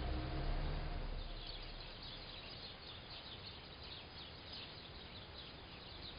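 A flock of small birds chirping, many quick falling chirps over a steady outdoor hiss, beginning about a second in. The tail of soft music fades out at the very start.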